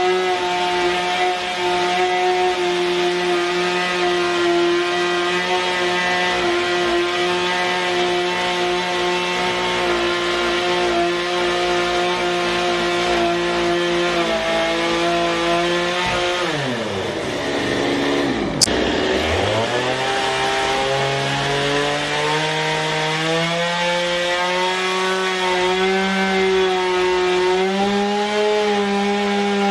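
Gasoline two-stroke chainsaw running at high revs while cutting through a log wall. About halfway, the engine pitch falls steeply, with a sharp click, then climbs slowly back up to full revs.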